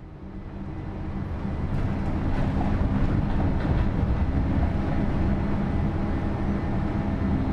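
Cabin noise of a moving city bus: a steady low rumble of engine and road with a faint drone, fading in over the first two seconds.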